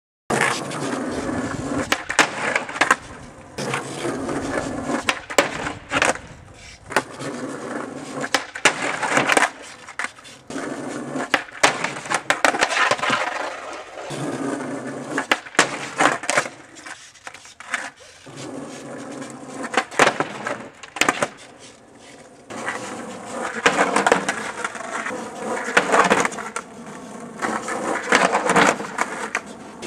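Skateboard wheels rolling on asphalt, with many sharp clacks of the board popping and landing and the scrape of metal trucks grinding along a low wooden box.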